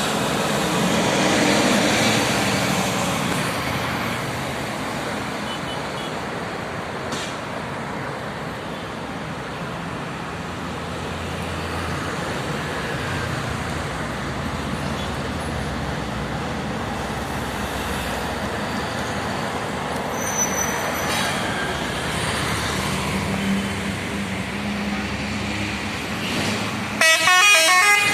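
Road traffic running past, with one vehicle louder in the first few seconds. About a second before the end, a bus's multi-tone musical horn sounds a quick run of changing notes as a greeting, the loudest sound here.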